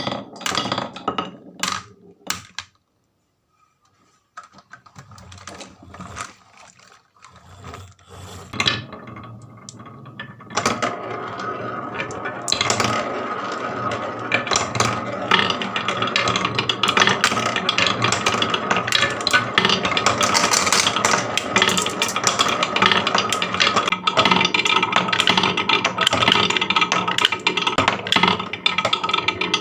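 Marbles clicking and rolling along a wooden marble-run track: a few separate clicks, a short pause, then from about ten seconds in a dense, continuous clatter of many marbles that grows louder.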